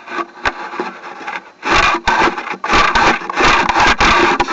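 Drain inspection camera and its push cable scraping and rubbing against the pipe wall at a narrow constriction. A faint rasp turns, about a second and a half in, into a run of loud, uneven scraping strokes.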